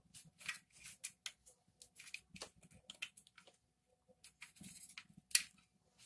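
Faint scattered clicks and light rattles of plastic vacuum-cleaner parts and wiring being handled as the motor assembly is lifted out of its housing, with one sharper click about five seconds in.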